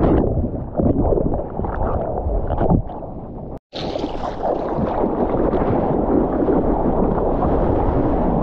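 Muffled churning of breaking-wave whitewash with the camera underwater. Then, after a split-second dropout about three and a half seconds in, a steady brighter rush and splash of seawater around a moving surfboard.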